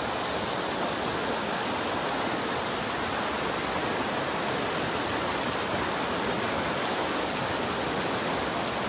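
Mountain creek rushing over rocks in whitewater rapids: a steady, unbroken rush of water.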